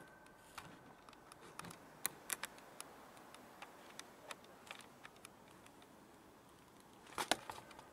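Quiet night ambience with scattered faint clicks and taps, and a quick cluster of louder clicks near the end. A ringing tone fades away in the first second or so.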